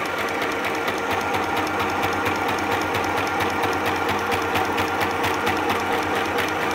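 Small Sew Simple FHSM 505 sewing machine running at its low speed setting, stitching a straight seam: a steady motor hum with rapid, even needle ticking that stops near the end.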